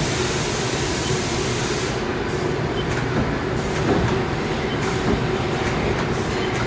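Haas SL-30 CNC lathe running under power: a steady mechanical hum with a constant tone and scattered light clicks, with a high hiss for about the first two seconds.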